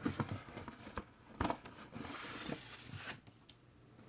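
Paper and card rustling with a few light knocks as a vinyl record's sleeve and packaging are handled.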